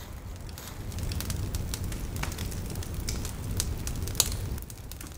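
Wood campfire crackling in a stone fire ring: scattered sharp pops and snaps over a low steady rumble that eases off near the end.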